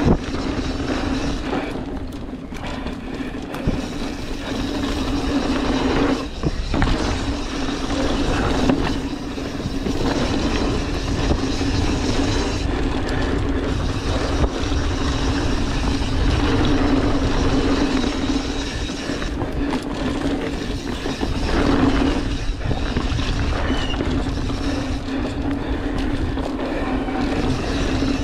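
Mountain bike rolling fast down a dirt singletrack, its knobby tyres giving a steady hum over a rough rumble, with rattles and knocks from the bike as it hits bumps.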